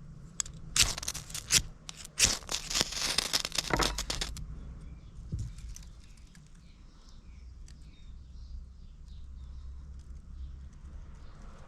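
Ferro rod struck repeatedly with a scraper, a quick run of harsh scrapes throwing sparks onto feather-stick shavings to catch a flame. The strikes stop about four seconds in, leaving faint rustling.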